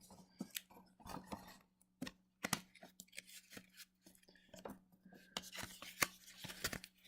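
Faint handling of a cardboard trading-card box and its wrapped pack being opened: scattered sharp clicks, scrapes and rustles of cardboard and plastic wrapper.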